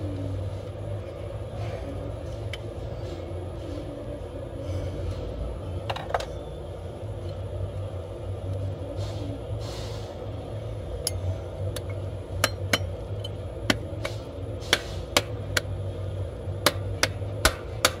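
Sharp metallic clicks and clinks from handling a steel adjustable blower-motor sheave taken off its shaft, about a dozen irregular clicks in the second half, over a steady low hum.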